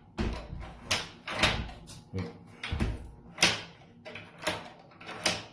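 Schlage B571 occupancy-indicator deadbolt being thrown and retracted with its thumb turn, the bolt clacking into a freshly drilled hole in the steel door frame in a string of about eight sharp clacks: a test fit showing the bolt engages the new hole.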